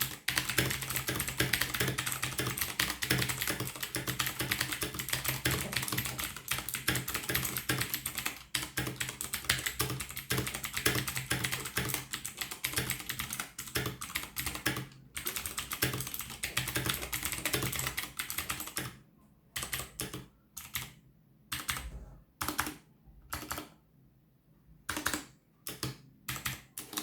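Typing on an ASUS ROG Claymore mechanical keyboard with clicky Cherry MX Blue switches on an aluminium plate: a fast, dense run of key clicks that, near the end, breaks up into separate keystrokes and short bursts with pauses between them.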